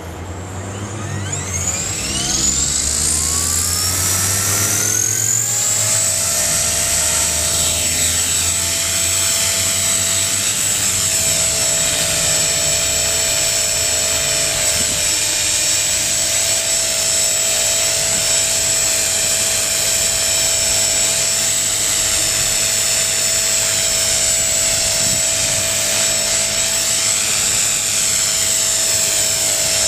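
Electric 450-size RC helicopter (an HK-450 T-Rex clone) spooling up, its whine rising in pitch over the first several seconds, then running steadily in flight as a high, constant motor-and-gear whine with rotor noise and slight wavers in pitch.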